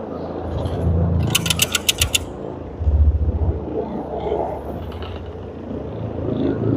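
Carpet cleaning extraction machine running with a steady low hum that swells twice. A little over a second in comes a burst of rapid clicking and rattling lasting about a second.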